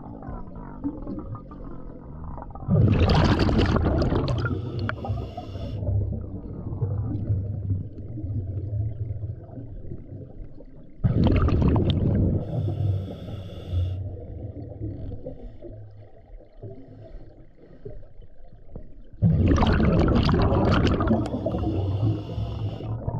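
Scuba diver's regulator breathing heard underwater: three loud rushes of exhaled bubbles about eight seconds apart, each lasting a few seconds, with a low rumble between breaths.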